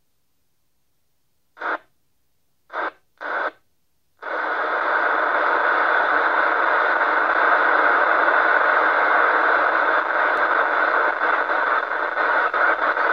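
FM radio receiver tuned to the ISS downlink: the squelch breaks open in three short bursts of static, then stays open on a steady, loud hiss with no voice, a weak or missing signal from the station.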